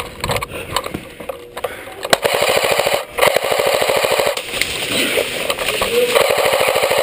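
Airsoft electric gun firing full-auto, a rapid, even rattle of shots. A short burst comes about two seconds in, and a longer one follows a moment later and runs to the end.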